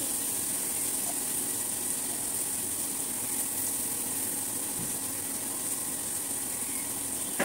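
Steady low hum under a constant hiss, with no distinct events.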